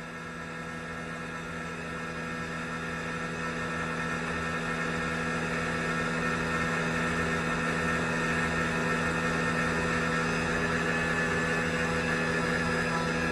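OKK machine tool running with a steady hum and whine made of several constant-pitched tones, growing gradually louder: the abnormal noise (異音) the machine is being recorded for.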